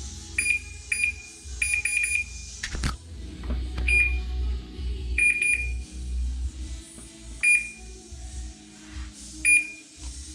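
Maytag oven range control board beeping: about a dozen short, high electronic beeps at irregular intervals, some single and some in quick runs of two to four, like key-press tones. There is a sharp click about three seconds in, over a steady low hum.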